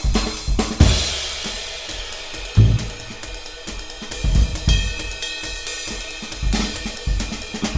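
Background music: a drum kit with busy hi-hat and cymbals, snare and bass drum hits at a steady beat.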